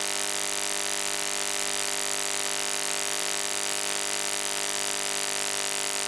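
Steady electrical buzz intruding on the audio: a constant drone of many fixed pitches with hiss on top, not changing at all.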